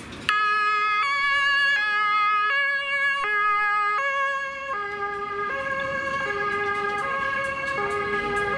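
German Red Cross ambulance's two-tone emergency siren (Martinhorn) alternating between a low and a high note about every three-quarters of a second. It starts abruptly. About five seconds in, both notes drop a little and get slightly quieter as the ambulance goes past.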